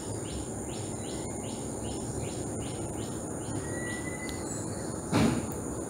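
Background insect and bird ambience: a steady high hum with a regular run of short chirps, and a brief thin whistle near the middle. A short, louder noise cuts in about five seconds in.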